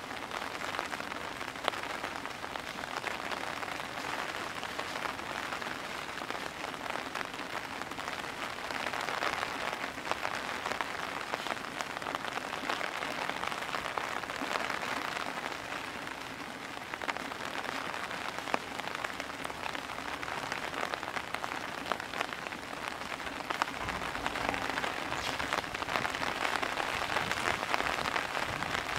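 Heavy rain falling in a downpour, a steady hiss of countless drops striking the ground and surfaces.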